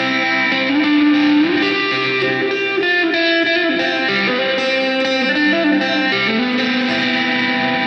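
Electric guitar music with effects and distortion, sustained notes that change pitch every second or so.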